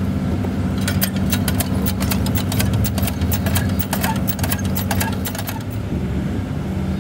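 Hand water pump being worked: quick metallic clicks and clanks from the handle and plunger, coming thick and fast from about a second in until nearly six seconds, while water pours from the spout into a tub made from an old tire. Under it all is a steady low engine-like drone.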